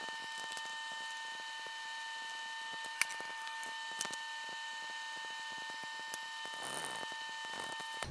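Scattered light clicks and taps of a hand tool on metal as a motorcycle exhaust muffler and its clamp and screws are fitted, the sharpest click about three seconds in, over a steady high whine.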